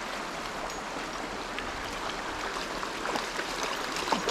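Steady rush of flowing water, with a few faint ticks near the end.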